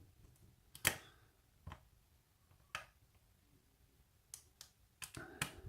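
Sharp metallic clicks, about seven at uneven intervals, from a hook pick working the pins of a pin-tumbler challenge lock under tension as pins set.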